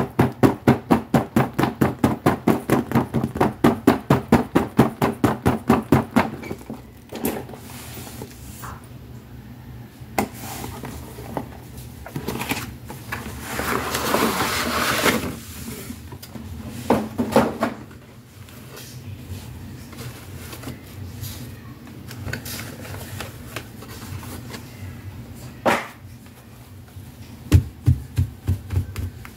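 Rapid, even tapping on toy packaging, about six taps a second for the first six seconds, then rustling and crinkling of cardboard and plastic packaging as a doll box is opened, with scattered clicks and a short run of taps near the end.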